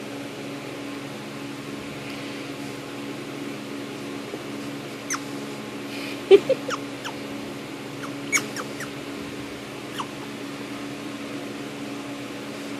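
Pet prairie dog giving short, high, falling squeaks, several in quick runs about five to nine seconds in, over a steady low hum. The owner takes it as the prairie dog being mad at having her finger pulled away.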